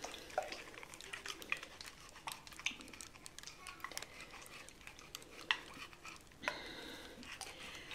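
Faint rustling and scattered small clicks of fingers working hot oil into the scalp through starter locs, with a second-long rasp about six and a half seconds in.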